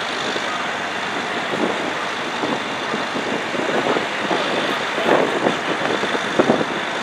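Fire truck engine idling, a steady engine noise with a few irregular swells.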